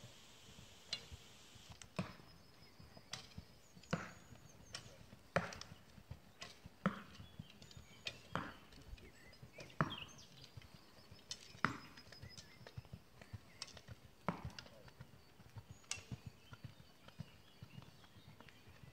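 Sharp knocks from a mounted archer shooting arrows, one about every one to two seconds, each shot loosed from the bow and striking a target.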